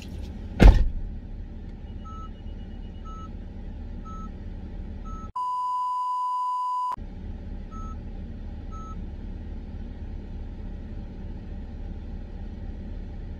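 Steady low rumble of an idling car heard from inside the cabin, with a heavy thump about a second in. A car's warning chime then dings about once a second, is interrupted by a steady high test-tone beep lasting about a second and a half, and dings twice more after it.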